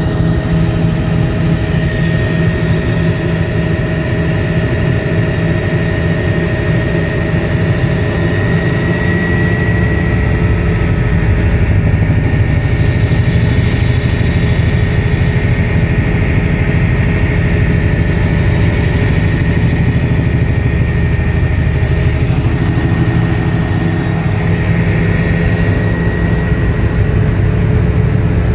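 Helicopter engine and rotor running steadily in flight, heard inside the cabin: a loud low drone with a thin steady high whine over it.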